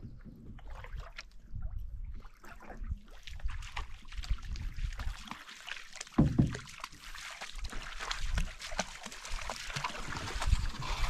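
Canoe being paddled through shallow water: paddle strokes with water dripping, trickling and splashing around the hull, and one louder low thump about six seconds in.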